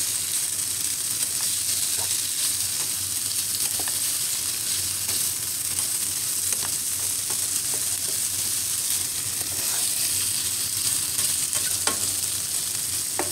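Cut-up sausage pieces searing in a nonstick pan with a little oil, a steady sizzle, with a few scattered scrapes and taps from a spatula stirring them.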